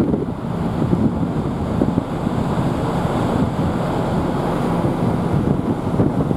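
Wind blowing on the microphone aboard a moving ferry: a steady, gusting rush that sits low, with no distinct events.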